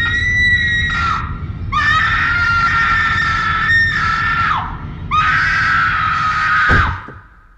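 A woman screaming in terror: three long, very high screams with short breaks between them, the last cut off abruptly near the end. The screams are loud.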